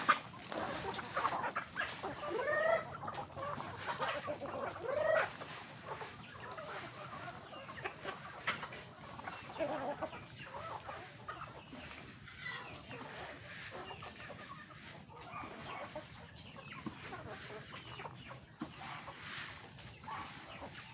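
A flock of native chickens clucking and calling while they feed, with a few short rising calls in the first few seconds. A single sharp knock sounds right at the start.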